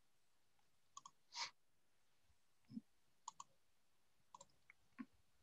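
Near silence broken by a few faint, short clicks, some of them in quick pairs.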